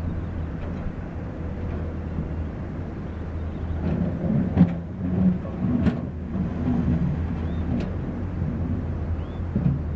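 Diesel engine of heavy construction machinery running steadily, with a cluster of clanks and knocks from about four seconds in.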